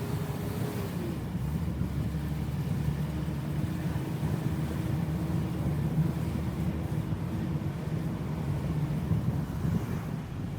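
BMW E34 M5 Touring's 3.8-litre straight-six running at a steady cruise under low, steady road and engine drone, dulled by the camera's anti-wind filter. A faint engine note drops in pitch about a second in, then a steady note holds through most of the rest.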